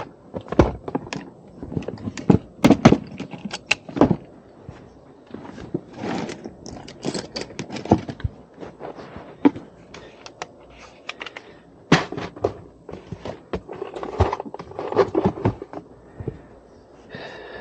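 Tools and small installation gear being handled: irregular knocks, clicks and rattles, with a few sharper knocks scattered through.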